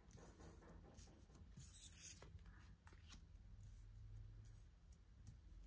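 Faint, scattered rustling and soft taps of tarot cards being handled, over near silence.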